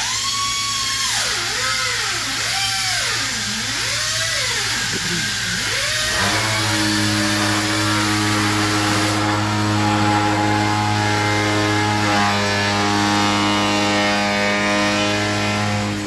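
Hand-held air tool on a shop air hose whining, its pitch dropping and climbing again about once a second as it is pressed and eased off. About six seconds in the swooping stops and a steady low machine drone takes over.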